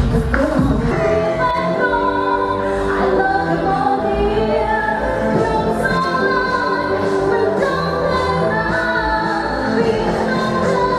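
Pop song with a female singer over a steady beat and accompaniment, played loud over a stadium sound system.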